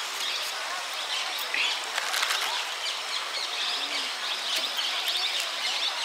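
Birds chirping and twittering over a steady outdoor hiss, with a few faint sharp clicks.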